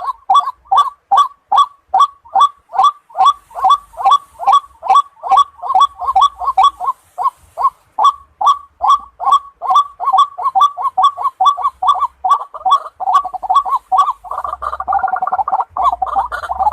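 White-breasted waterhen calling: a steady series of short repeated notes, two or three a second. About two-thirds of the way through, the calls crowd into a denser, overlapping tangle.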